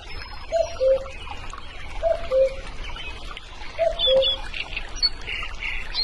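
Common cuckoo calling its two-note "cuck-oo", the second note lower than the first, three times at roughly one-and-a-half-second intervals. Fainter high chirps of other small birds run underneath.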